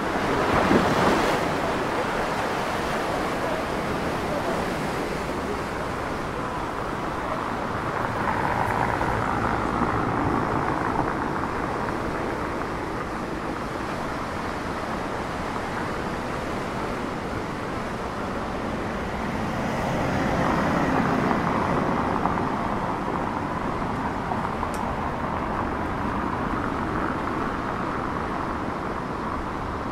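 Seafront outdoor ambience: surf washing against shoreline rocks and wind on the microphone, with road traffic that swells twice as vehicles pass.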